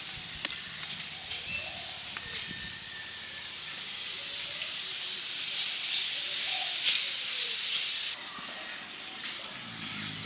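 A steady hiss that builds over several seconds and cuts off suddenly about eight seconds in, with a few faint clicks.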